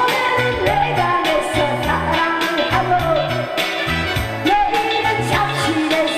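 Upbeat song with a singer's voice over a steady drum beat and bass.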